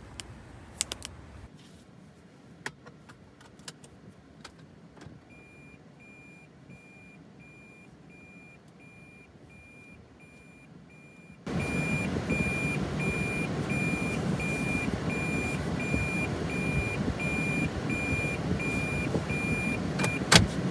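Toyota Prius in-cabin reverse warning beeping, an evenly repeated high beep that sounds while the car is in reverse. A few light clicks come first. About halfway through, a steady rushing noise comes on abruptly and runs under the beeps.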